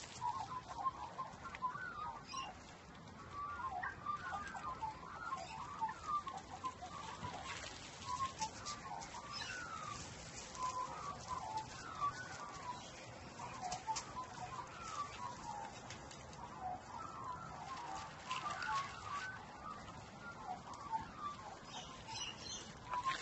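Chickens clucking softly, many short, low calls overlapping throughout, some sliding up or down in pitch, with a few light clicks in between.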